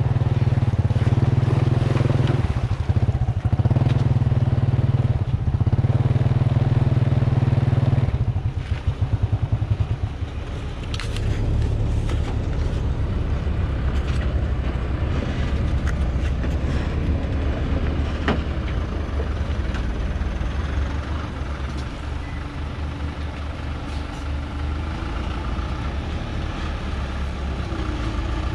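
A nearby engine runs steadily close to the microphone and cuts off about eight seconds in. After that, the diesel engine of a heavily loaded log truck works its way up a muddy hill, a steady low drone broken by scattered knocks and clanks, rising slightly near the end.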